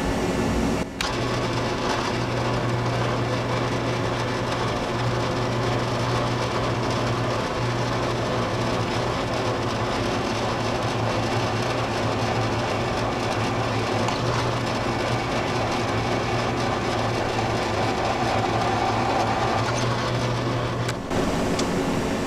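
Drill press running with its bit cutting into a steel rivet that holds a hub to a plow disc: a steady motor hum with the grinding of the cut. The sound breaks briefly about a second in and again near the end.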